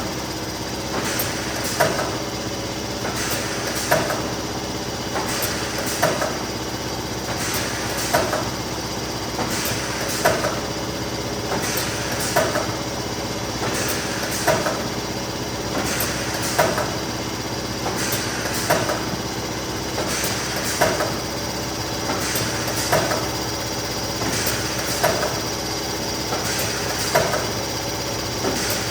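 Neoram 540 hot laminating machine running steadily with a hum, and a sharp clack about every two seconds as sheets are fed through it one after another.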